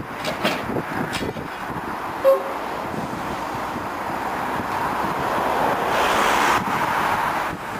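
Small narrow-gauge diesel locomotive running slowly closer, its noise growing louder toward six or seven seconds in. A brief horn toot sounds about two seconds in.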